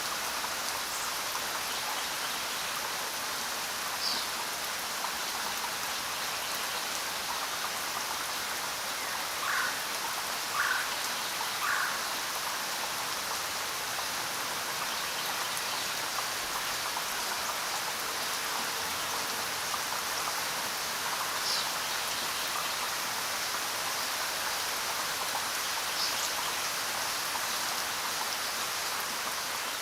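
Steady rain falling, an even hiss with no letup. A few brief, sharp sounds stand out from it, three in quick succession about ten seconds in.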